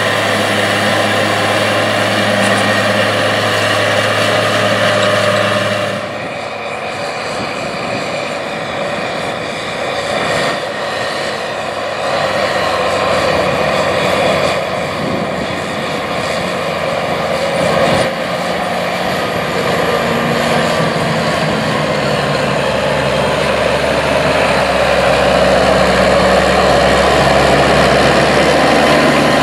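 Case IH 305 Magnum tractor's engine running under load as it pulls a field cultivator through the soil, getting louder near the end. For about the first six seconds a different large tractor's engine is heard, with a steady deep hum, before it cuts off suddenly.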